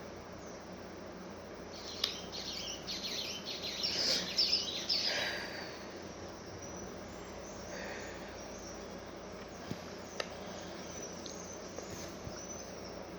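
Small birds chirping: a quick run of high chirps with falling sweeps a couple of seconds in, then fainter scattered chirps, with a couple of faint clicks.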